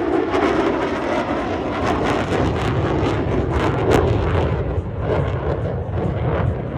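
Loud jet rumble with rapid crackling from the F-35B's Pratt & Whitney F135 engine as the jet flies its display, easing off gradually toward the end.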